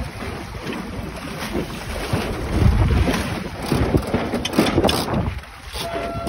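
Wind buffeting the microphone over water rushing and splashing along the hull of a small sailboat under way, rising and falling in gusts, loudest about halfway through and briefly easing near the end.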